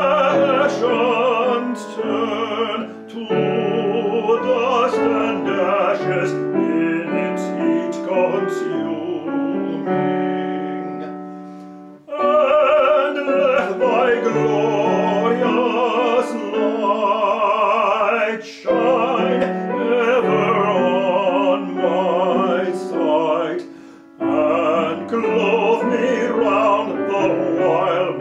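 A man singing solo in a trained, operatic style with a wide vibrato, with piano accompaniment. The phrases break off for brief pauses about twelve seconds in and again about twenty-four seconds in.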